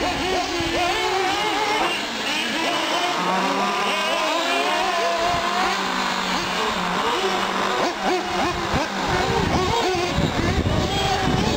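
Several nitro-powered Associated SC8 1/8-scale RC short-course trucks running on the track, their small engines revving up and dropping back over and over as they race and pass one another. Low rumbling joins in from about nine seconds in.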